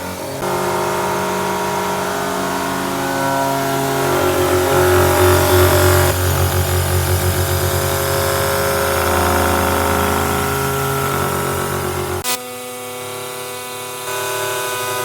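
Hobby CNC mill's spindle running while it thread-mills a steel nut: a steady whine of several tones over a low, pulsing rumble that swells in the middle. About twelve seconds in the sound drops abruptly to a quieter, thinner hum, then steps up again near the end.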